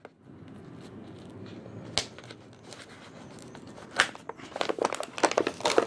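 Fingers picking and prying at a toy's clear plastic blister pack on its cardboard backing card: a faint rustle, then single sharp plastic clicks about two and four seconds in and a run of quick crackles near the end, as the blister resists coming open.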